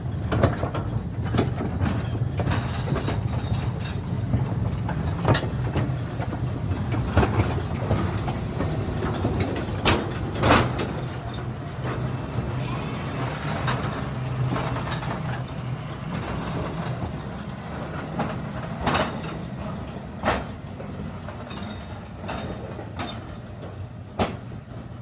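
Narrow-gauge field railway battery locomotive and tipper wagon running on the track: a steady low rumble with scattered sharp clicks and knocks from the wheels on the rails.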